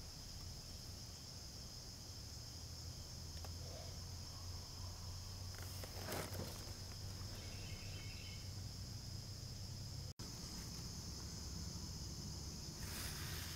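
Faint, steady high-pitched chorus of insects in a garden, with a low hum underneath.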